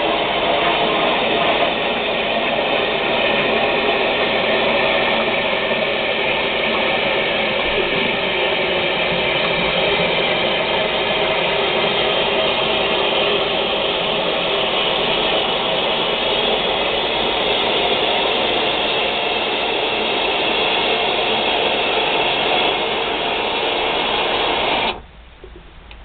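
Toilet tank refilling through its ballcock fill valve: a steady loud hiss of rushing water that cuts off suddenly near the end as the rising float ball closes the valve. The shut-off shows the float, freshly screwed back onto its broken-flanged plastic arm, now stops the fill instead of letting the toilet run on.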